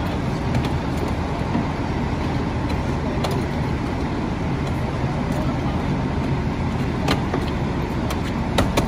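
Steady low rumble of a fire engine's engine running at the scene, with a few short, sharp knocks and clicks, several of them near the end, as the firefighters work on the burnt-out car.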